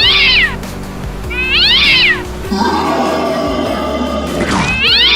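A cat meowing three times, each meow about half a second long, rising then falling in pitch, over background music. A longer, lower wavering sound fills the gap between the second and third meows.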